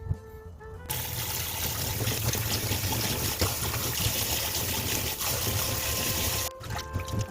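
Tap water running in a steady stream, turned on about a second in and cut off near the end, as the mountain bellflower roots are rinsed clean.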